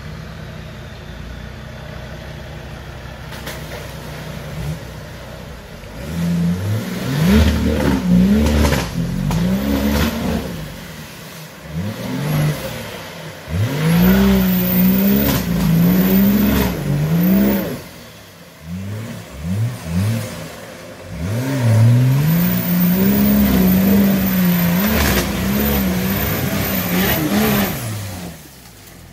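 Nissan Patrol Y61's swapped BMW M57 3.0 straight-six turbodiesel running steadily at first, then revved hard again and again under load as the truck climbs a steep bank, its pitch repeatedly rising and falling.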